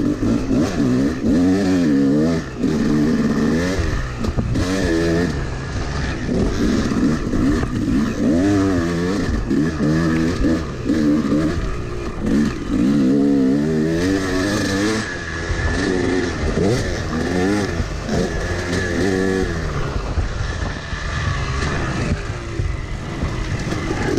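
Yamaha YZ250 two-stroke dirt bike engine, heard close from on the bike, revving up and down again and again as the rider accelerates, backs off and shifts along the track.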